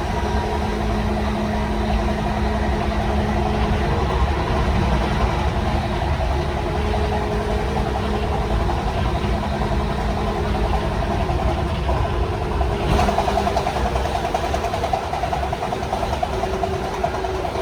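185-series EMU motor car running at speed. Its MT54 traction motors and gearing give a steady whine over the rumble of wheels on rail. About 13 seconds in, a rushing hiss grows louder on top.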